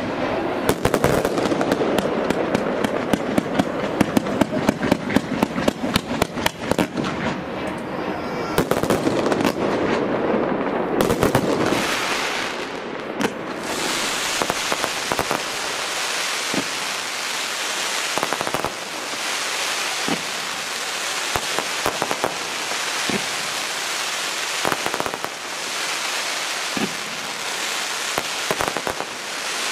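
Fireworks display: for about the first eleven seconds a dense barrage of rapid pops and crackles, then a steady hissing crackle from rising and falling glitter, broken by single bangs every second or two.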